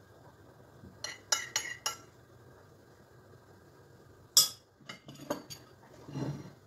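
A metal spoon clinking and scraping against a plate while food is arranged. There is a quick run of four clinks about a second in and one sharp, loud clink a little after four seconds, then several lighter taps and a soft rub near the end.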